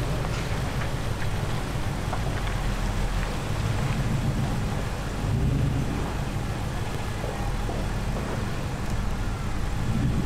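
Nissan Y62 Patrol's 5.6-litre petrol V8 running at low revs as the 4WD crawls slowly through a dirt rut, with a steady low rumble and tyres crunching over dirt and gravel.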